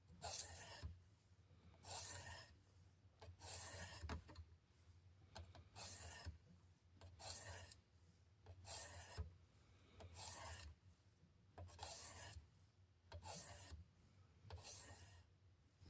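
A ceramic hone on a Work Sharp Precision Adjust sharpener stroked along the steel edge of an OTF knife blade, a dry rasping scrape. About eleven even passes come roughly one every second and a half, in the final fine-grit stage of sharpening.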